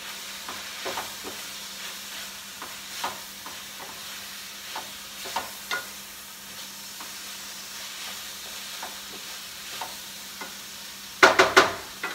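Chicken strips with sliced bell pepper and red onion sizzling in a frying pan while a wooden spoon stirs them, with light clicks and scrapes of the spoon against the pan. A quick run of sharp knocks comes near the end.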